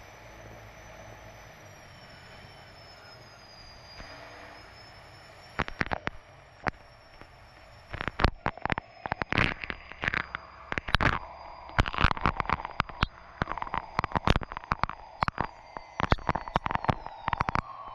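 Unlimited hydroplane's turbine engine running with a steady high whine that drifts slightly in pitch, heard from the onboard camera. From about five seconds in, irregular sharp knocks and thumps break in, coming quickly and loudly from about eight seconds on.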